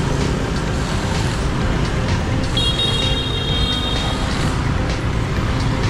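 Steady city street traffic of passing motorbikes and cars. About two and a half seconds in, a high steady tone sounds for about a second and a half.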